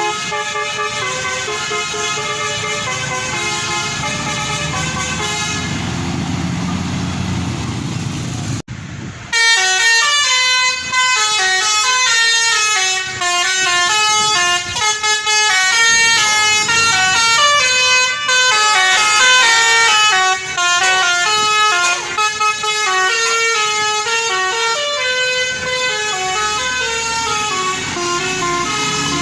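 Bus's basuri telolet horn playing a melody of quick stepped notes. In the first part a low engine rumble runs underneath. About eight seconds in the sound drops out briefly, and then the horn tune comes back louder.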